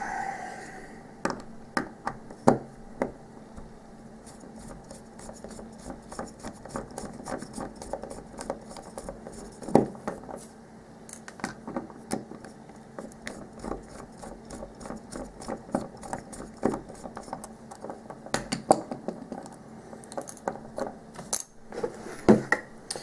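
Irregular small metal clicks, taps and clinks from a mortise lock cylinder and hand tools being handled while the cylinder is taken apart, with a few sharper knocks among them.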